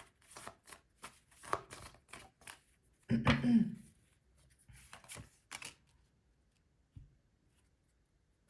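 Tarot cards being shuffled by hand in quick rustling strokes, which stop about six seconds in. A louder, lower sound breaks in about three seconds in.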